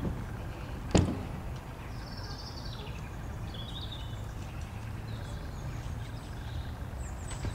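Outdoor background: a steady low rumble, a bird chirping a few times, and a single thump about a second in.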